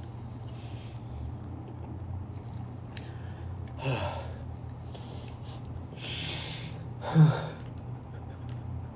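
People eating, with short breathy sounds: an exhale about four seconds in, a sniff or breath a little after six seconds, and a brief sigh just after seven seconds. A steady low hum runs underneath.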